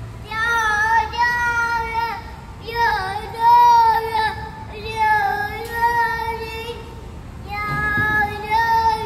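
A high voice singing a simple tune in four long phrases of held notes, each about one and a half to two seconds long, with short breaks between.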